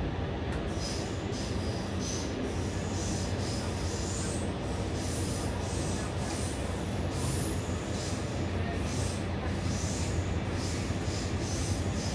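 Stockholm metro train running between stations, heard from inside the carriage: a steady low rumble of wheels on rail. From about a second in, high-pitched wheel squeals come and go every half second or so.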